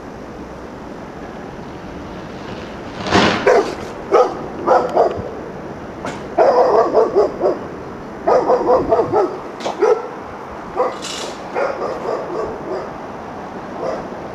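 A dog barking again and again in short, quick runs of barks, starting about three seconds in, over a steady background hiss.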